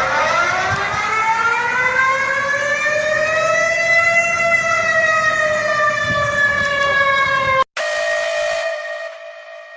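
An electronic emergency-alarm siren wails, rising in pitch over about four seconds and then slowly falling, before cutting off abruptly. A steady alarm tone follows and fades out near the end.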